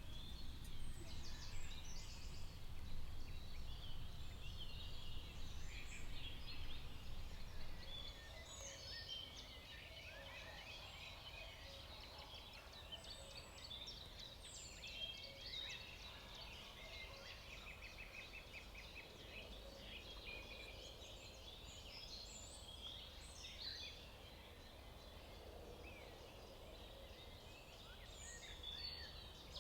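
Forest birdsong: several small birds chirping and trilling over one another, with quick runs of repeated notes. A low rumble sits underneath for the first eight seconds or so, then drops away.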